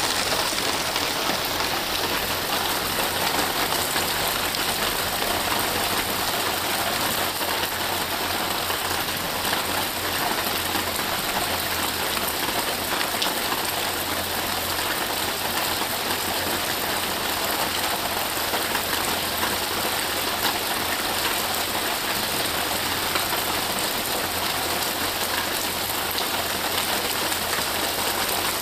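Steady rain falling on grass and trees, an even hiss with no breaks.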